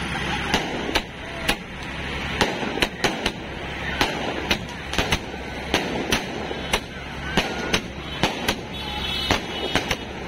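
Aerial fireworks bursting overhead in a rapid, irregular series of sharp bangs, about two to three a second, over a steady background hum.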